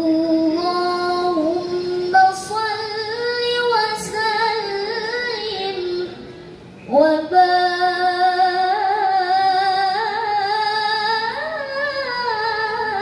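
A young woman's voice reciting the Quran in the melodic tilawah style through a microphone and PA speakers, with long, ornamented held phrases. She pauses for breath about six seconds in, then begins a new phrase with an upward slide.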